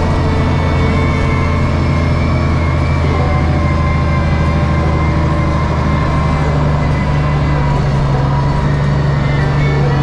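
John Deere wheel loader's diesel engine running steadily as the machine drives along, a constant low drone.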